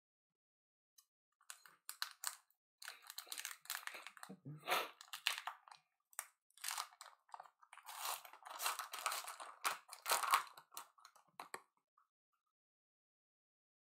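Trading cards being handled close up: cards sliding and flicking against each other with rustling and scraping in irregular bursts for about ten seconds, with a soft low bump near the middle, stopping shortly before the end.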